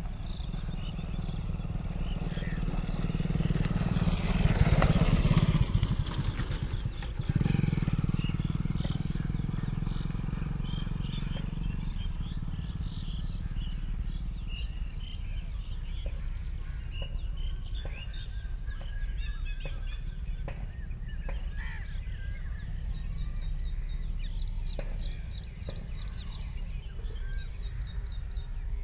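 Trackside outdoor ambience: a steady low rumble with a louder swell of passing-vehicle noise about four to seven seconds in, then small birds chirping in short repeated bursts in the second half.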